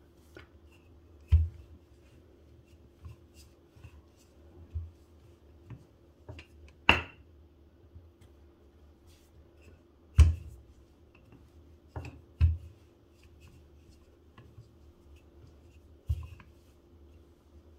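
Wooden rolling pin rolling chapati dough on a granite countertop, with quiet rubbing and several sharp knocks of the pin and dough against the stone counter.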